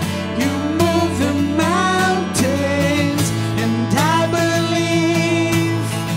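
Acoustic guitar playing under a man and a woman singing a worship song together, with long held, gliding sung notes.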